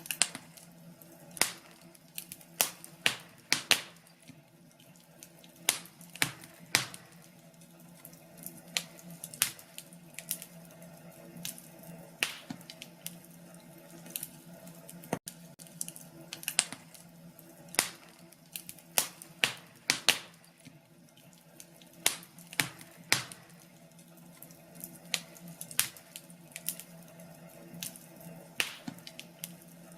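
Wood fire crackling, with irregular sharp pops and snaps over a faint steady low hum.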